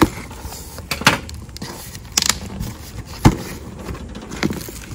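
Unpacking noises as a backpack is handled in its shipping box: a few sharp knocks and scrapes, a short rustle about two seconds in, and a louder thump a little after three seconds.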